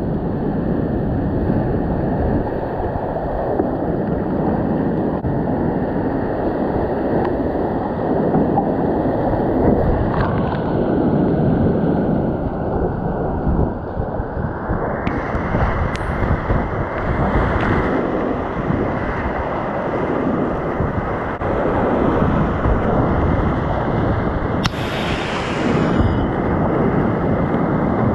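Whitewater rapids of a steep mountain creek rushing loudly around and under a kayak running them, a steady, dense rush of water.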